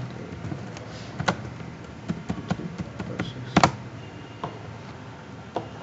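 Typing on a computer keyboard: irregular keystroke clicks, with a louder double click a little past halfway.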